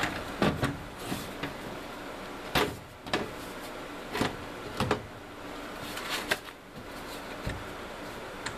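Sheet-metal furnace access panel being handled and fitted back onto the cabinet: a string of sharp knocks and clanks, about eight over several seconds.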